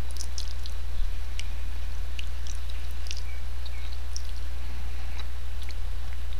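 Steady low hum with faint, scattered small clicks and ticks.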